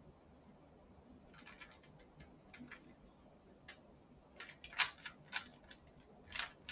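Plastic Rubik's Cube faces being turned by hand: irregular clusters of short clicking and rattling, starting after about a second, with the loudest turn about five seconds in.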